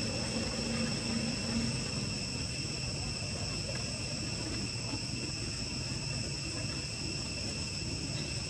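A steady insect chorus, several high-pitched tones held without a break, over a low rumble.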